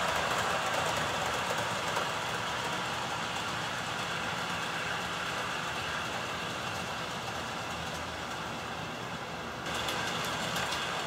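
HO scale model subway train running along an elevated track: a steady motor whir and wheel-on-rail noise that fades slightly. About ten seconds in, the sound changes abruptly to a brighter one with faint clicking.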